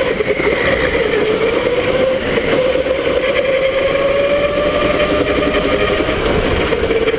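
Electric go-kart motor whining. The pitch dips briefly about a second in, then rises steadily as the kart speeds up, over a constant rushing noise.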